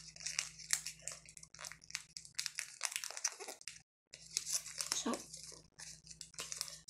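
Sheet of paper being folded and creased by hand against a hard book cover: irregular rustling and crinkling strokes, with a brief gap about four seconds in.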